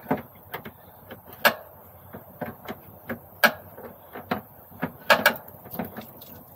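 Coolant dripping from a semi truck's opened radiator drain into a plastic drain pan: irregular sharp taps of drops hitting the pan, a few much louder than the rest, as the cooling system is drained.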